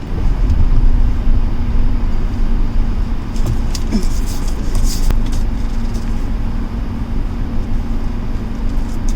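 Car running, a loud low engine and road rumble with a steady hum, heard from inside the car.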